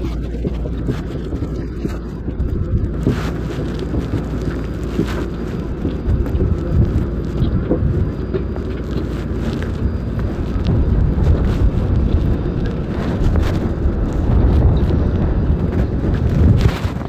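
Wind buffeting the microphone in a loud, steady low rumble, with occasional footsteps knocking on metal boarding stairs.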